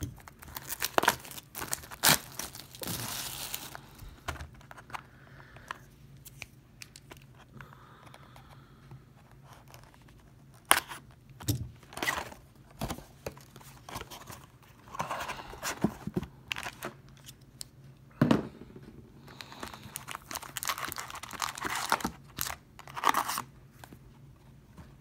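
Clear plastic shrink wrap being torn and crinkled off a sealed trading-card box, then the cardboard box being opened and its foil card packs handled. Scattered sharp clicks and taps come in between, with longer stretches of rustling a few seconds in, around the middle, and near the end.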